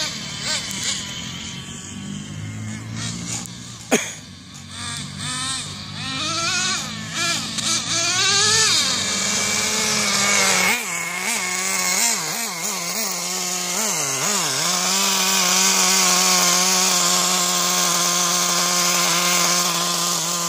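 Traxxas Jato nitro RC truck's small two-stroke glow engine revving up and down under throttle, then running at a steady high pitch. A sharp click about four seconds in.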